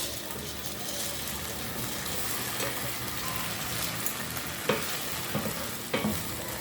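Sugar caramel sizzling in a pot as it is stirred, with a few sharp clicks in the second half; the caramel is darkening towards black.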